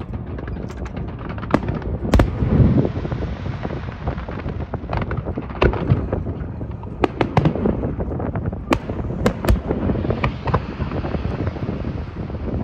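Aerial fireworks display bursting: a continuous rumble of booms with many sharp cracks scattered throughout, bunching in quick clusters several times.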